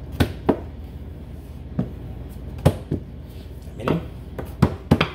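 Thin wooden rolling pin knocking and rolling on a countertop as empanada dough is rolled out: about eight sharp, irregular knocks over a few seconds.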